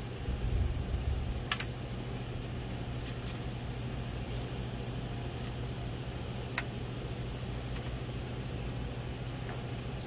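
Small clicks and rubbing of wire spade connectors being handled and pushed onto a replacement AC run capacitor's terminals, over a steady low hum. Two sharp clicks stand out, about a second and a half in and again near the middle.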